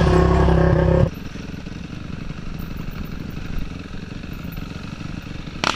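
Dirt bike engine running loudly for about a second, then a sudden cut to a quieter dirt bike engine running steadily with an even beat. A short sharp knock comes near the end.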